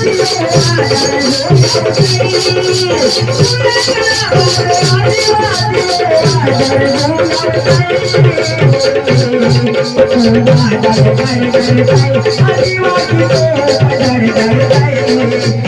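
Adivasi folk music: a fast, steady percussion beat of about four strokes a second, with a rattling shaker-like sound, under a wavering, bending melody line.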